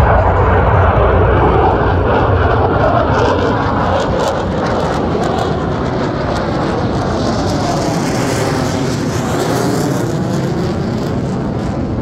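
Jet engine noise from Black Eagles T-50B jet trainers flying past overhead. The dense, deep rumble turns thinner and hissier with a sweeping, phasing sound from about seven seconds in as the jets pass and pull away.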